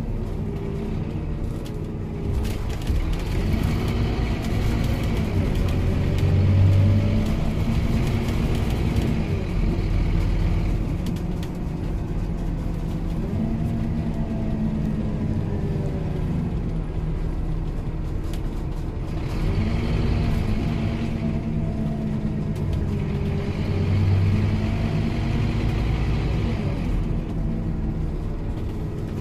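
Scania OmniLink single-deck bus heard from inside the passenger saloon while driving: a steady low engine and road rumble, with the engine note climbing and falling in pitch twice as the bus pulls away and changes gear.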